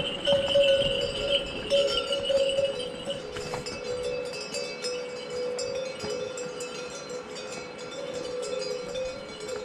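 Bells on pack yaks ringing steadily as a yak train walks past, loudest in the first three seconds.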